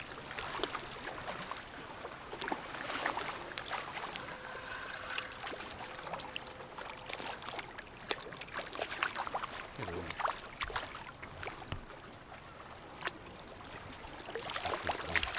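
Water splashing as a hooked bass thrashes at the surface, with irregular small splashes and lapping water.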